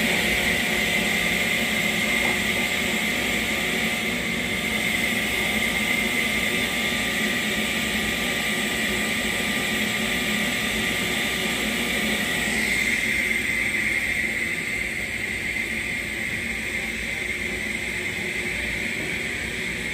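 Steady drone of workshop machinery with several humming tones and a high whine. The lower humming tones fade about two thirds of the way through, leaving the whine and a hiss.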